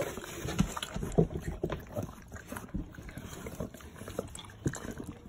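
Irregular soft knocks, rustling and wet handling sounds as a newborn puppy, coming breech, is drawn out of a Shar-Pei by hand.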